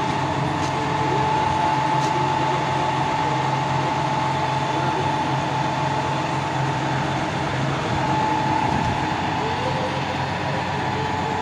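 Kalmar reach stacker's diesel engine running steadily at low revs, with a steady high-pitched whine over the engine note.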